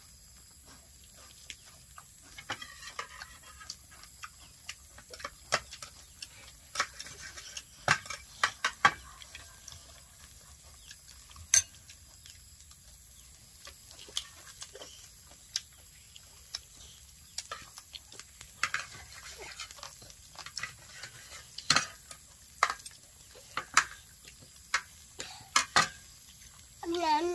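Eating sounds: scattered sharp clicks and smacks of people chewing and pulling apart grilled chicken, with occasional clinks of dishes and cutlery. A short voice starts right at the end.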